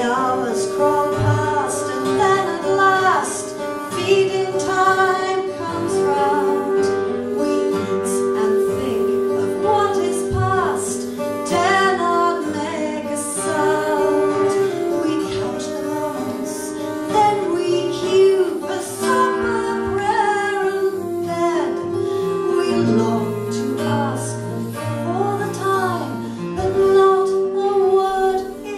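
Folk music: a woman singing over acoustic guitar, with a steady held note beneath.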